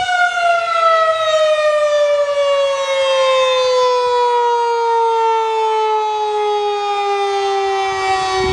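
Town fire siren (an outdoor warning siren) winding down: its held tone gives way to a steadily falling pitch.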